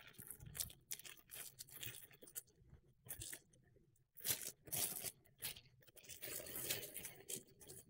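Clear plastic wrapping crinkling and tearing as it is pulled off a cardboard product box, in irregular rustling bursts, busiest in the second half.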